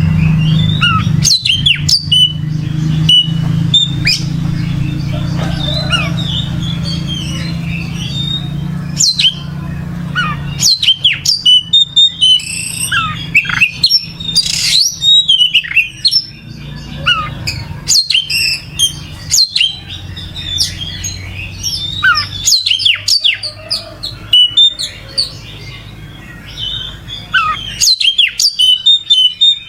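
Oriental magpie-robin (kacer) singing in full, vigorous song: a fast, varied run of whistles, quick rising and falling sweeps and chirps. A steady low hum runs beneath until about two-thirds of the way through.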